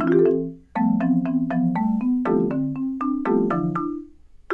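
Chrome Music Lab Song Maker's synthesized marimba playing a quick, repeating sequence of notes drawn from the letters of a name, with chords underneath. A short break comes about a second in before the pattern starts again, and the notes die away near the end.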